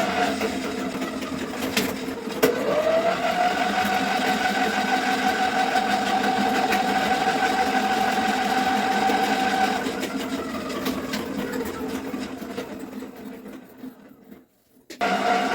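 Electric drain-cleaning machine (motorized sewer snake) running with a steady motor hum. About two and a half seconds in it dips and spins back up, then winds down from about ten seconds in and stops, starting up again near the end. The plumber suspects the pipe is broken, with the cable going outside it.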